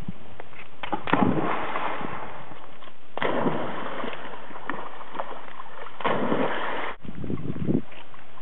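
Splashing and sloshing of river water as a dog jumps in and paddles, with abrupt changes in the sound about three seconds in and again near seven seconds.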